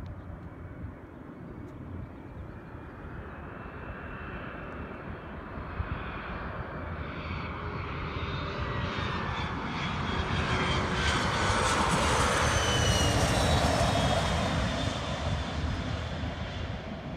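Cessna Citation Sovereign+ business jet's twin turbofan engines on landing approach, growing steadily louder as it nears and peaking as it passes about twelve seconds in. A high whine slides down in pitch as it goes by, and the sound eases off near the end as the jet rolls out on the runway.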